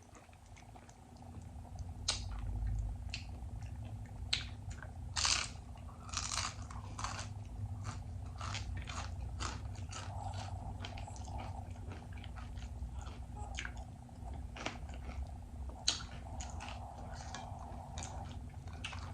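Close-miked chewing of Doritos nachos: irregular sharp crunches of the chips, with wet mouth sounds, starting about two seconds in and going on throughout.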